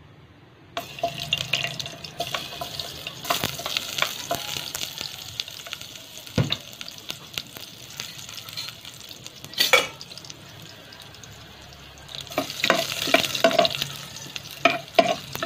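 Chopped garlic sizzling in hot cooking oil in a stainless steel pot. The sizzle starts about a second in as the garlic drops into the oil. One sharp knock comes about two-thirds of the way through, and near the end a metal spatula scrapes and clinks against the pot as the garlic is stirred.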